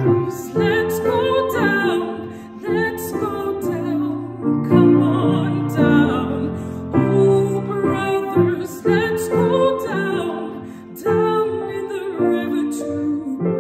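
Slow, gentle music, with a melody moving over sustained chords.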